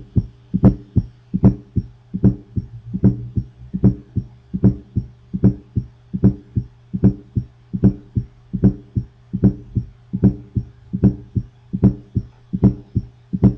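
Recorded heart sounds of an S4 atrial gallop: a steady heartbeat at about 75–80 a minute, each beat a close cluster of two or three sounds, over a steady low hum. The S4 comes from the atria contracting hard to fill a stiff or enlarged ventricle.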